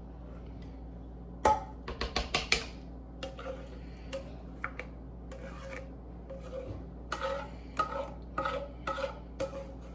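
A slotted metal spoon scraping and clinking against a cooking pot as browned ground beef, peppers and onions are scooped out. It starts with a quick run of scrapes and knocks about a second and a half in, then comes in more spaced strokes, over a steady low hum.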